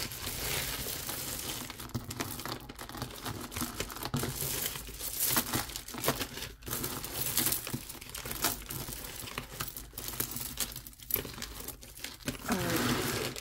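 Clear plastic bag crinkling and rustling as a hand rummages in it and pulls out beaded jewelry, with a steady run of sharp crackles.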